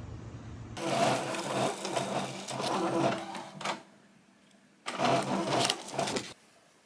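Epson inkjet printer printing, running in two spells of mechanical whirring and clicking as the print is fed out, with a short pause between them. A low hum before it cuts off under a second in.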